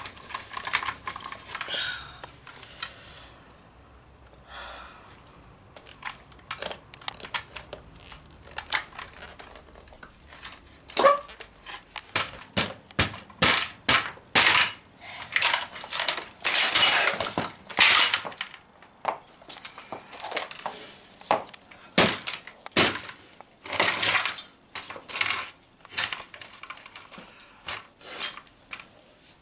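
Irregular sharp knocks and clatter as the hard plastic and metal parts of a 1/5-scale RC car are struck and broken apart. The blows come singly and in quick clusters, some with a brief ring.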